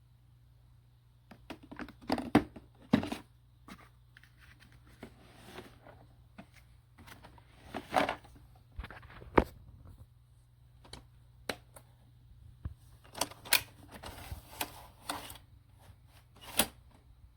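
Irregular handling noises: scattered clicks, knocks and rustling, some sharp and close, over a low steady hum.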